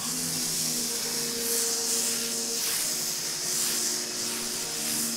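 EGO Power+ 3200 PSI battery pressure washer on turbo mode, spraying soap through its foam cannon: a steady hiss of foam jetting onto a car's paint, starting right at the trigger pull.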